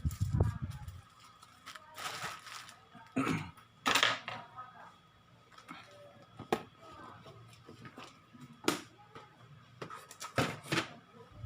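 Scattered sharp clicks and knocks with a few short rustles, over a faint steady high tone.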